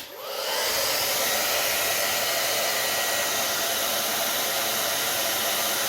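Hair dryer switched on and running steadily, a rushing blast of air that builds over the first half-second and then holds level. It is blowing hot air on a heat detector to trip it.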